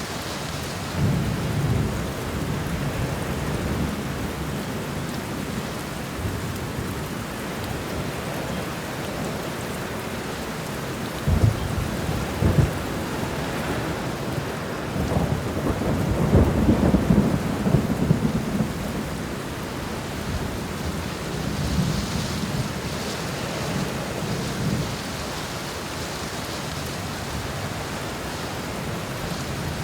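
Steady rain on an apartment window, with low rolls of thunder swelling in and out, the longest and loudest a little past the middle, and two brief sharp jolts shortly before it.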